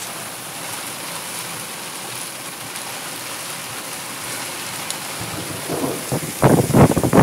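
Rain falling in a steady hiss. About six seconds in, loud irregular rumbling bursts break in over it.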